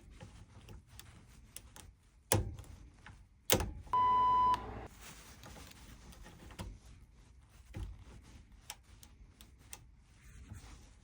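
A single steady beep tone lasting about half a second, about four seconds in. Around it, light clicking and tapping from lock picks working the pins of an antique Kwikset deadbolt, with two sharper knocks just before the beep.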